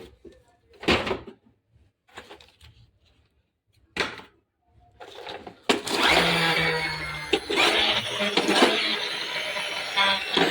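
Toy tractor: a few sharp plastic knocks and clacks, then from about six seconds in its small motor and wheels whirring continuously as it runs.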